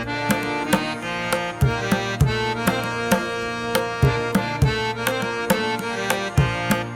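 Background music with a steady beat: sustained pitched notes over regular drum hits.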